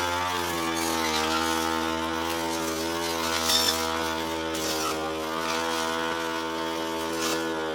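Petrol brush cutter engine running at a steady speed, its pitch dipping slightly just after the start and then holding even, with a few brief high ticks over it.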